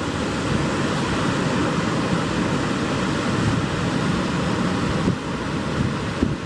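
Ocean surf washing onto a rocky shore, a steady rush of waves with no single crash standing out, and wind buffeting the microphone.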